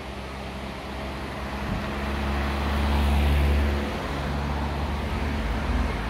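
A motor vehicle's engine running with a steady low hum, swelling to its loudest about three seconds in, then easing back.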